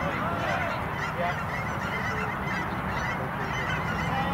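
Geese honking, a few faint arched calls in the first second or so, over a steady low outdoor rumble.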